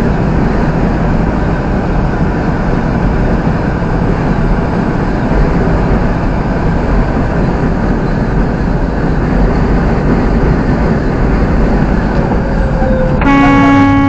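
Steady driving noise of a vehicle on the road, engine and tyre rumble. Near the end a horn starts a long, steady blast that is louder than the road noise.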